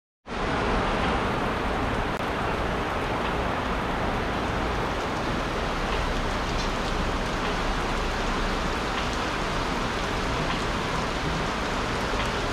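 Torrential rain pouring down steadily, heard from under an awning, as a dense even hiss on the wet pavement with scattered drop ticks.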